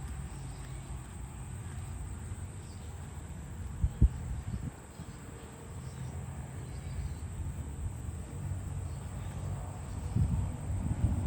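Outdoor rural ambience: a steady high insect drone over a low rumble, with a sharp knock about four seconds in and a few low thuds near the end.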